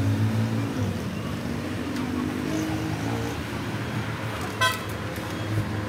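Steady low hum of road traffic and engines, with one short horn toot about four and a half seconds in.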